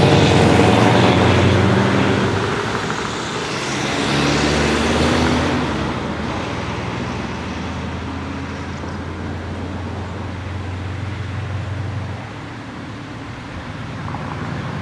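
Scania 164L 480 V8 lorry with an open straight pipe pulling away through the gears, its engine note stepping in pitch with each shift, then fading as it drives off into the distance.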